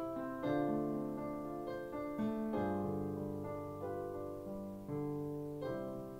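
Piano playing slow sustained chords, the instrumental close of a children's song once the singing has stopped. Each chord dies away before the next, and the last one fades out near the end.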